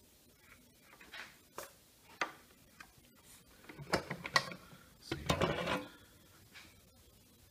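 Light clicks and knocks of tools and a circuit board being handled on a wooden bench. The clatter gets denser about four seconds in, with a louder rattling stretch of about half a second just after five seconds.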